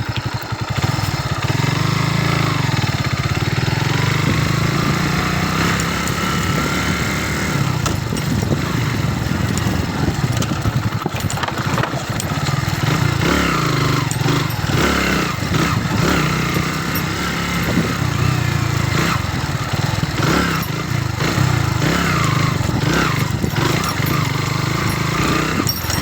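Kawasaki B175TR motorcycle engine running steadily while being ridden. Frequent short knocks and rattles come in during the second half.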